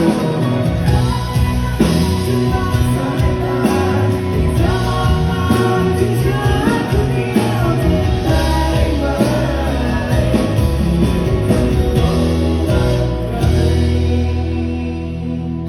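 Live band playing a Thai pop-rock song with singing. Near the end the band lands on a held final chord that rings out.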